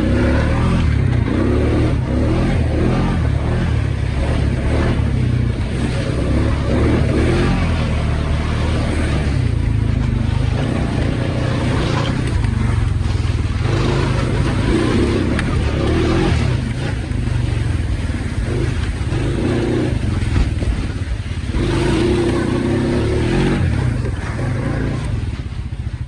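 ATV engine running and revving as the machine is ridden through deep mud, with a steady low rumble and rises in engine pitch as the throttle is worked for traction.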